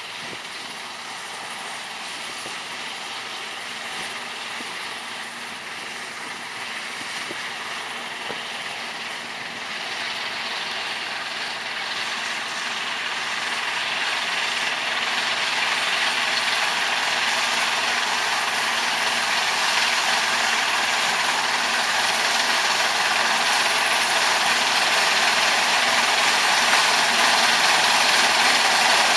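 Rice combine harvester running, a steady mechanical noise of engine and threshing machinery with a few steady tones through it. It grows gradually louder throughout.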